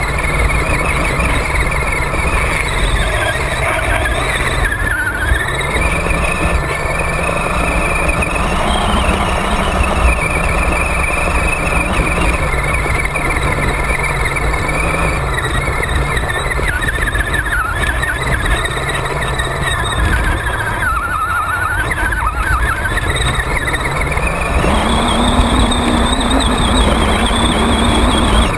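Radio-controlled truck's motor and drivetrain whining, the pitch gliding up and down with the throttle as it drives through shallow water and over sand, over a steady rumble of tyres and water.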